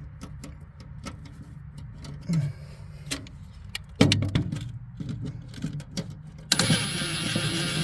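Screws and sheet-metal parts clicking and tapping as they are handled and set, with a louder knock about four seconds in; about six and a half seconds in, a power screwdriver starts running steadily.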